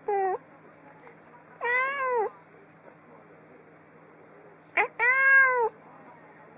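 Calico cat meowing three times: a short meow at the start, then two longer meows that rise and fall in pitch, about two and three seconds apart.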